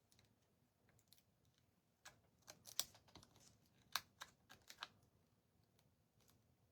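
Near silence broken by a scattering of faint, short clicks and taps, most of them between about two and five seconds in.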